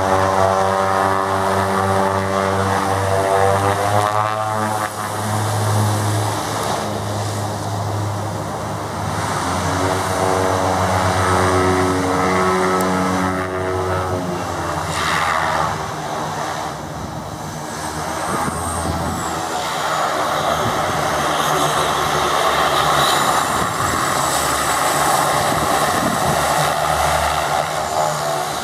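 Turboprop aircraft with Pratt & Whitney PT6A engines. For the first half the propellers turn at low power with a steady droning tone that slowly beats and shifts. From about halfway through, engine power comes up to a louder, broader sound with a high whine as a twin-turboprop Piper PA-31T Cheyenne II takes off and climbs away.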